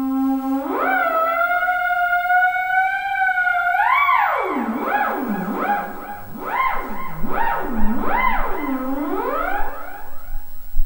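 Prepared theremin playing: a held tone glides up in pitch about a second in and holds, then from the middle on swoops down and up again and again, roughly once a second, over a steady lower tone.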